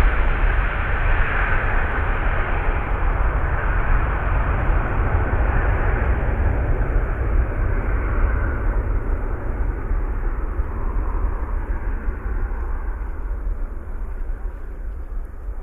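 Antonov An-124 Ruslan's four D-18T turbofans at takeoff power as the freighter climbs away: a deep, steady rumble with a hiss above it. The higher part fades and the overall level drops slowly as the aircraft recedes.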